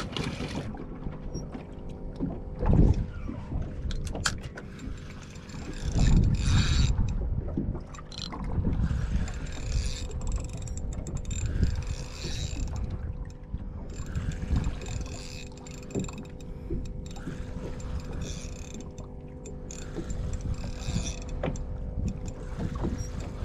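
Spinning reel being cranked to wind in line, its gears whirring, over a steady faint hum and uneven low rumble that swells a few times.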